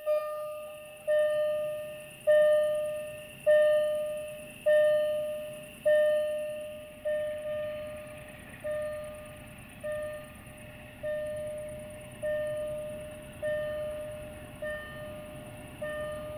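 Level-crossing warning bell striking steadily, about one ringing strike every 1.2 seconds, each strike fading before the next. From about halfway through, a low rumble of an approaching diesel freight train grows underneath.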